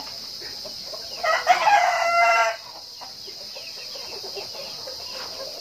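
A rooster crowing once, about a second in, a single held call lasting about a second and a half that cuts off abruptly.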